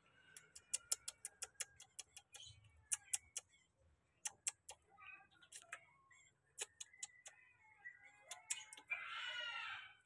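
A rainbow lorikeet giving soft, short twitters among many sharp clicks and taps, then a harsh screech lasting about a second near the end.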